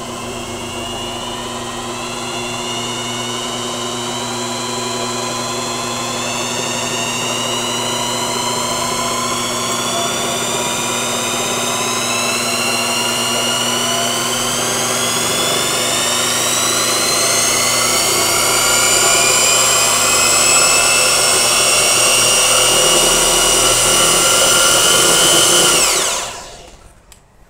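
Brushed electric motor belt-driving a homemade generator, its whine rising slowly in pitch as it gains speed over a steady low hum, then winding down and cutting off near the end.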